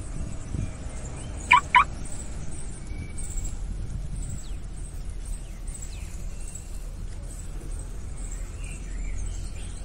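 Low steady rumble of a small toy truck's wheels rolled by hand over a rough concrete ledge. Two short, high calls come close together about a second and a half in, the loudest sound here.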